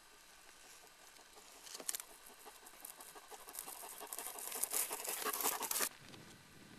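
Dry crop stubble crackling and snapping as it is pushed through and trodden. The sound starts about two seconds in, builds to a dense crackle and cuts off suddenly near the end.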